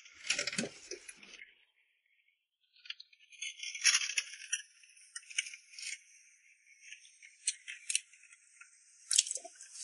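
Lumps of coral rock being shifted by hand in a shallow seawater tank: scattered clinks, knocks and rattles of rock against rock and glass, with water noise, broken by a brief pause about two seconds in.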